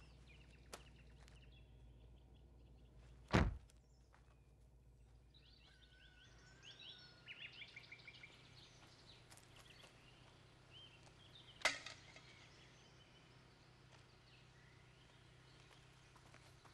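A car door slams shut once with a heavy thud, then birds chirp in the surrounding woods, with a second sharp knock a few seconds later. A low steady hum underlies the first part and stops about six seconds in.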